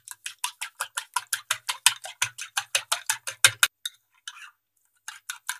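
A metal fork beating raw eggs in a cut-glass bowl, clinking against the glass in a quick, even rhythm of about six strokes a second. The strokes pause for about a second near the end, then start again.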